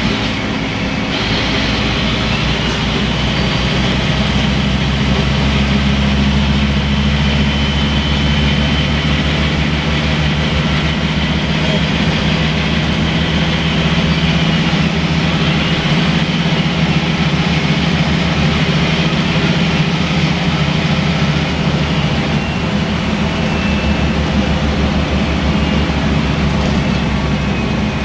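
Scania N230UB bus heard from inside the passenger saloon while under way: its rear-mounted five-cylinder diesel engine running with a steady low drone that shifts pitch a little now and then, over a constant road noise.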